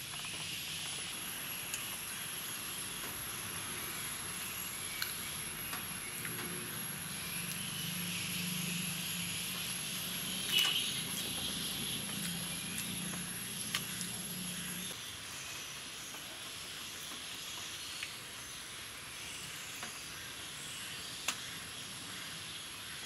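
Steady outdoor background hiss with a few light clicks scattered through it, the sharpest about ten seconds in, and a faint low hum through the middle stretch.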